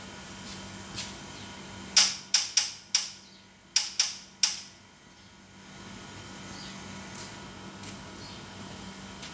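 Newly wired car horn tapped in a quick run of about seven short, sharp toots over some two and a half seconds: a test that the horn relay works.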